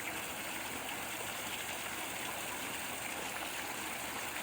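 Water from a small man-made waterfall falling and splashing steadily over rocks.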